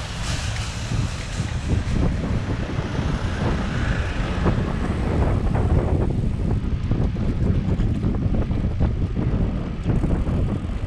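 Wind rushing over the microphone of a camera on a moving bicycle, a steady low rumble.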